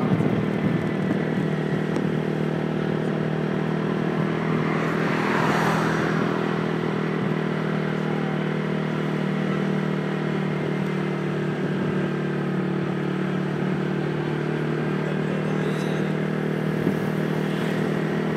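Small motorbike engine running steadily under way, a constant drone.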